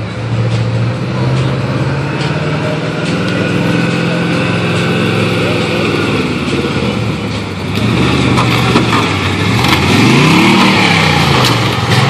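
A vehicle engine running, with one rev that rises and falls back near the end.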